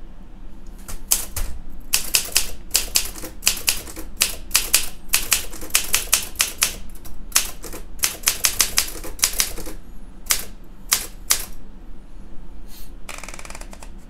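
1962 Olympia SM7 manual typewriter being typed on: a fast run of crisp typebar strikes with short pauses, stopping a couple of seconds before the end. Near the end comes a short rasping sound.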